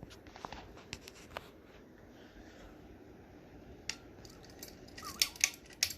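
A 36-inch hugger ceiling fan running on the floor with a faint steady whir and a few light ticks, then a quick flurry of loud, sharp metallic clicks and rattles about five seconds in.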